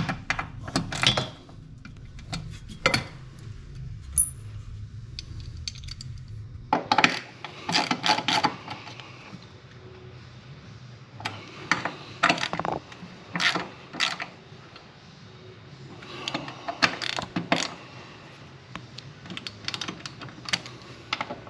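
Metal hand tools clicking and clinking in irregular clusters as the intake grate's bolts are checked for tightness by hand. A low hum runs under the first several seconds and stops suddenly.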